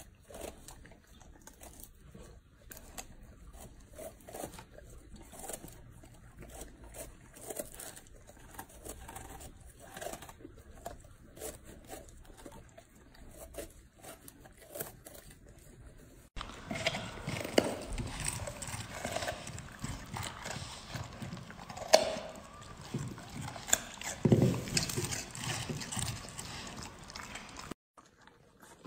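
Two golden retrievers chewing and gnawing food, with irregular wet smacks and crunches. About sixteen seconds in the sound changes abruptly to louder, denser crackling with a couple of sharp knocks.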